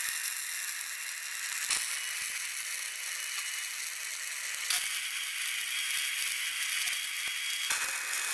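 Electric arc welding on steel plate: a steady crackling hiss, changing abruptly a few times as one weld follows another.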